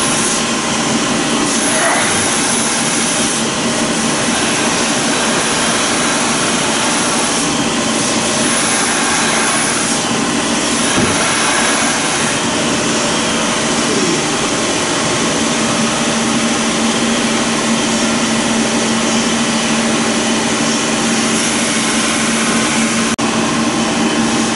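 A steady, loud machine drone with a constant low hum, like a large fan or blower running without a break, and one sharp click near the end.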